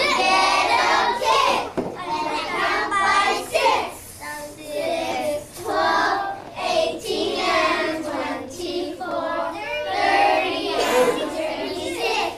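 A class of young children singing a times-table counting song together.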